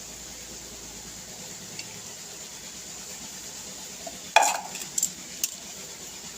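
Metal kitchen utensils being handled while a boiled herbal decoction is strained. About four seconds in, a single sharp metallic clank rings out, followed by a few light clinks; before that there is only a faint steady hiss.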